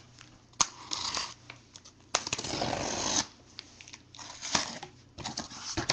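Small utility knife slitting the packing tape on a cardboard shipping case: a sharp click about half a second in, then three rasping, tearing strokes, the longest about a second.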